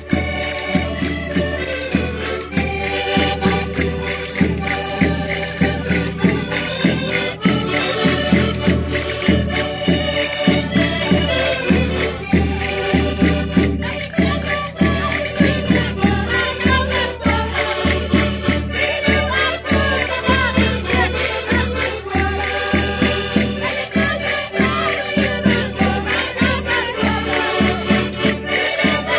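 Portuguese Minho folk song played on a concertina (diatonic button accordion) with acoustic guitar, keeping a steady beat, while a group of women sing along together.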